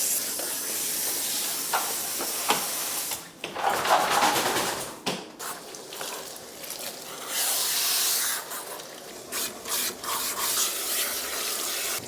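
Shower sprayer spraying water to rinse de-shedding shampoo out of a big long-haired dog's coat. A steady hiss for the first few seconds, then breaking off and coming back in shorter spells.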